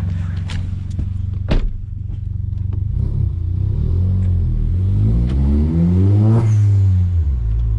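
Turbocharged VW Golf engine accelerating, its revs climbing for about three seconds. A brief burst of noise follows as the revs drop near the end.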